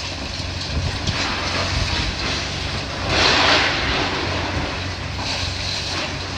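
Heavy demolition machinery with a diesel engine running steadily, with a louder burst of noise about three seconds in.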